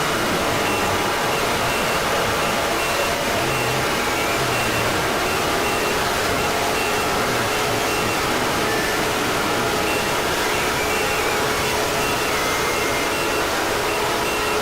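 Fan-made Emergency Alert System-style alarm mix: a dense, distorted wall of noise at an unchanging level, with many alarm tones layered through it. Short repeating beeps sound high up, and a low steady tone grows stronger about two-thirds of the way through.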